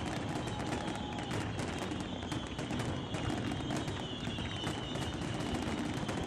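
Fireworks crackling in a rapid, dense stream of small pops that keeps up without a break.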